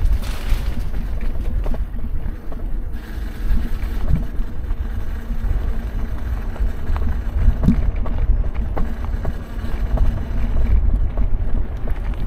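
Wind rumbling on the microphone, a continuous low buffeting, with a faint steady hum underneath and a few light knocks.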